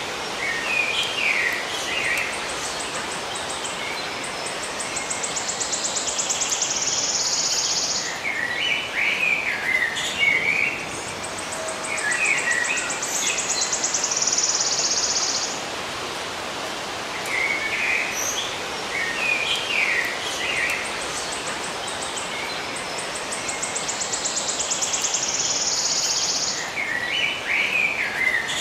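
Small birds calling in short, quick chirpy phrases over a steady hiss. A high, rapid pulsing buzz swells over a few seconds and then cuts off abruptly, recurring about every ten seconds along with the chirps.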